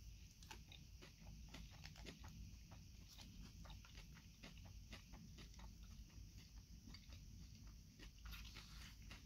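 Close-miked chewing of a crunchy salad: a quiet, irregular run of small crisp crunches, several a second.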